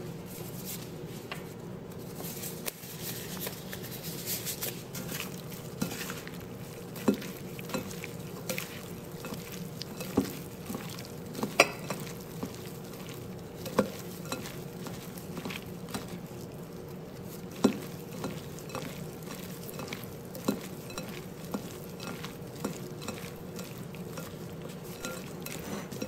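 A gloved hand tossing short noodles in a glass bowl to coat them with dark soy sauce and oil: a soft, continuous mixing noise with irregular sharp clicks against the glass. A steady low hum runs underneath.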